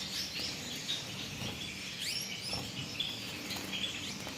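A cage-full of Gouldian finches chirping, many short high calls overlapping, with a steady low hum underneath.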